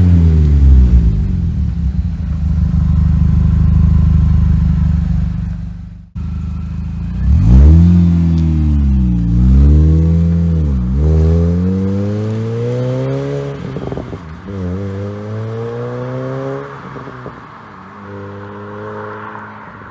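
Mini Cooper S JCW's supercharged four-cylinder engine being revved through its exhaust: the revs fall and hold, there is a sudden break about six seconds in, then several quick rev blips rise and fall before the engine settles back towards idle near the end.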